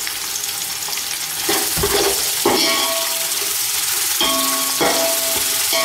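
Sliced onions sizzling as they fry in hot oil in an aluminium pot, stirred with a spoon. From about two seconds in, the spoon knocks against the pot a few times, each knock leaving a short metallic ring.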